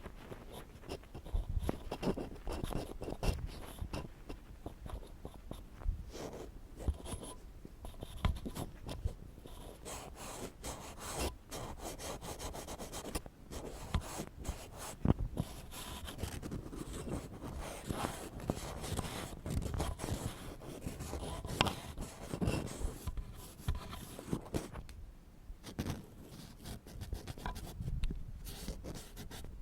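Ear pick scraping and scratching close on a microphone: a continuous run of irregular rough strokes with small clicks, fairly loud rather than soft.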